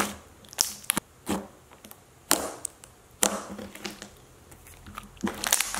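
Red clear slime being squeezed and stretched by hand, giving a string of sharp, wet clicks and pops spaced unevenly, with a few quieter stretchy crackles in between and a quick cluster of clicks near the end.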